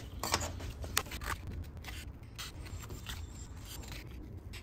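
Scissors cutting cardstock in short, irregular snips, with the paper scraping.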